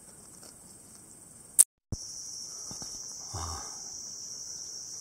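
Steady high-pitched buzzing of a summer insect chorus. It is faint at first; a sharp click and a moment of silence come about a second and a half in, and after that the buzzing is louder.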